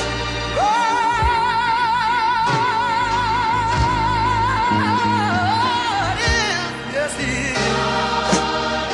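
Gospel music: a solo singer holds one long high note with a wavering vibrato for about four seconds, then breaks into a run of shorter notes, over band accompaniment with a few drum hits.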